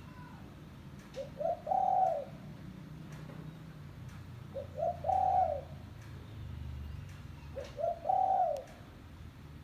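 Spotted dove cooing: three repeated phrases about three seconds apart, each two short notes followed by a longer drawn-out coo, used as a lure call to draw wild doves.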